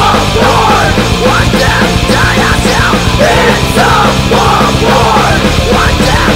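Loud post-hardcore rock music: a full band with distorted electric guitars, bass and drums playing a fast, steady passage.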